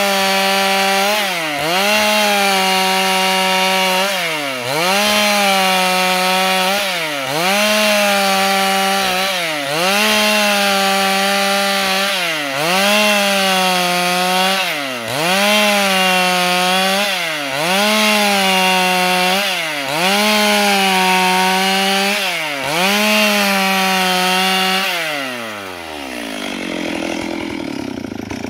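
Stihl MS 382 two-stroke chainsaw at full throttle ripping a board lengthwise into battens, its engine pitch dipping briefly and recovering about every two seconds. Near the end the throttle is released and the engine slows down to a quieter low run.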